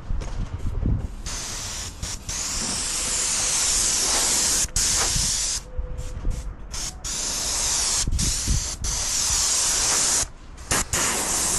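Airless paint spray gun hissing loudly as it sprays, starting about a second in. The hiss cuts off and restarts several times as the trigger is released and pulled again.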